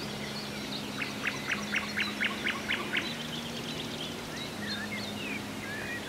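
Songbirds singing in a forest: one bird gives a run of about ten quick repeated notes over two seconds, then scattered whistled phrases follow.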